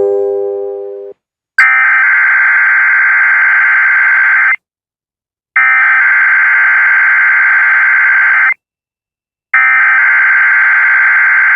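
NOAA Weather Radio SAME alert header sent three times: three identical bursts of digital data tones, each about three seconds long with a one-second pause between them. They mark the start of a required weekly test broadcast.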